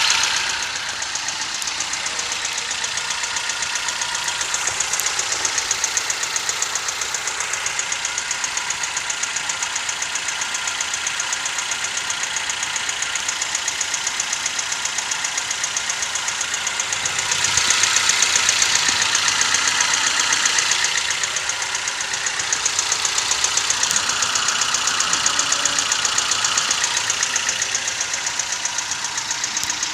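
Toyota 1NZ-FE 1.5-litre four-cylinder engine running with a fast, steady knocking. It grows louder for a few seconds just past the middle, then settles back. The owner has been told the knock points to the timing chain and the VVT-i phaser, but is not sure.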